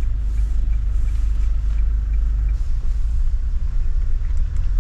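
Camper van engine and road noise, a steady low rumble heard from inside the cab as the van drives on.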